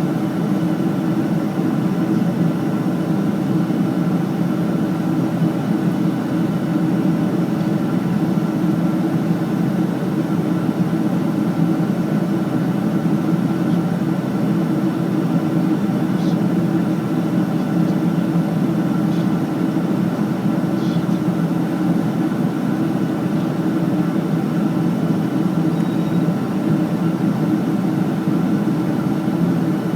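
Steady drone of an airliner cabin in flight: engine and airflow noise, even and unbroken, with a deep, low hum.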